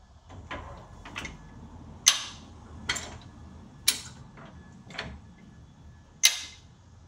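48-inch farm jack being pumped to lift the rear of a loaded truck: a series of sharp metal clacks, about one a second, as the jack's climbing pins catch in the holes of its steel standard on each stroke of the handle. Three of the clacks, at about two, four and six seconds in, are clearly louder than the rest.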